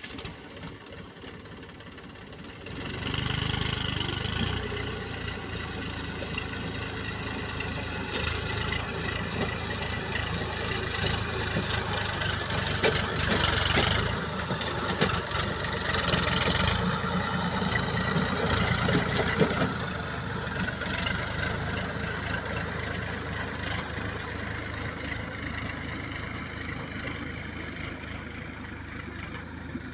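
Diesel engines of a backhoe loader and tractor running as mud is loaded. The engine noise rises about three seconds in, surges harder twice in the middle, then eases off.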